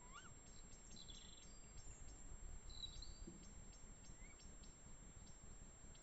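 Faint night woodland sounds: a fast, regular high ticking of about four a second, with a few short high chirping calls in the first half.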